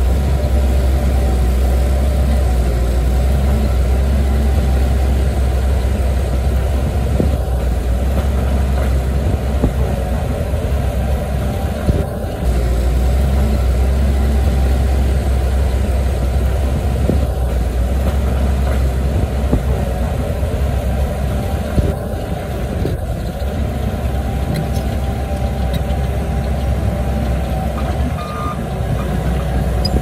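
Bulldozer's diesel engine running steadily with a deep drone, its level dipping briefly a few times.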